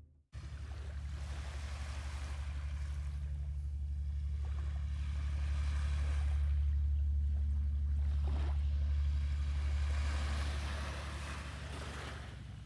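Small waves washing in and out on a sandy beach, swelling and fading every few seconds, over a steady low hum.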